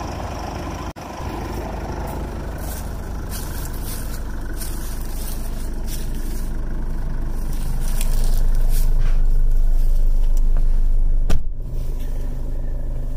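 2005 Jeep Liberty CRD's 2.8-litre VM Motori four-cylinder turbo-diesel idling steadily, with rustling and knocks as someone climbs into the driver's seat. A sharp thump comes about eleven seconds in as the door shuts, and after it the idle sounds muffled, heard from inside the cabin.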